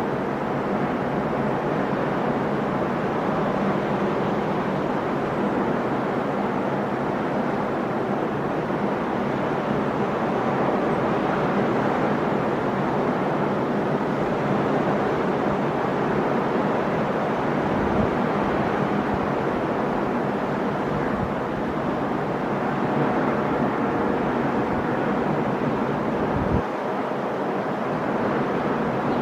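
Sea surf washing steadily onto the shore, a continuous rushing of breaking waves.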